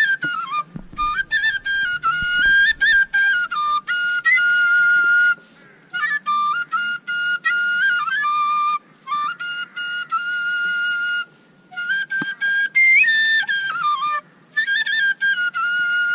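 Small side-blown flute playing a melody in short phrases of stepped, clear notes, with brief pauses between phrases.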